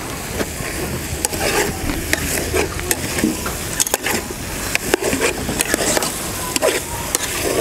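Metal spoon stirring chopped vegetables in an aluminium pot, clicking and scraping against the sides again and again, over a steady sizzle from the hot pot.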